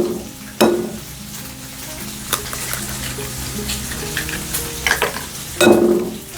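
Bacon sizzling on a hot flat-top griddle, a steady frying hiss. A few sharp taps and clinks break in, with a louder clatter near the end.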